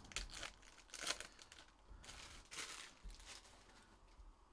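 Foil trading-card pack wrappers crinkling and tearing as packs are ripped open by hand, in several short faint rustles, the longest a little after two seconds in.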